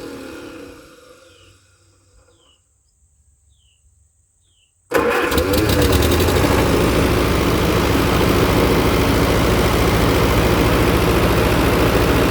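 Allis-Chalmers WD45 tractor's four-cylinder engine winding down to a stop, falling in pitch. Then near quiet with a few faint chirps, until about five seconds in the engine is suddenly running again and carries on at a steady idle.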